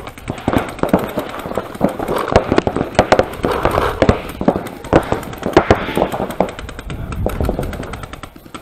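Paintball markers firing: rapid, irregular sharp pops from several guns across the field, thinning out near the end.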